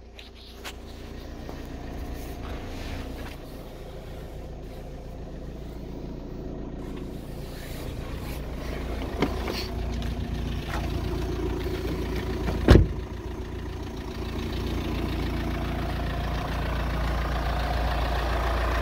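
VW T5 Transporter van's engine idling steadily, growing louder as the cab door is opened, with a few light clicks and one loud thump about two-thirds of the way through as the door is shut.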